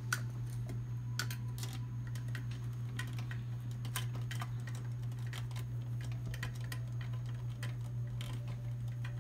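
Irregular small clicks and taps of a screwdriver and screws against a dental scanner's main board and metal chassis as the board is worked into place, over a steady low hum.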